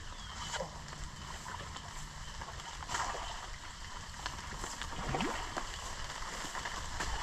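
Steady rain and water sloshing at the water's edge, with a few light knocks as a hooked carp is brought in.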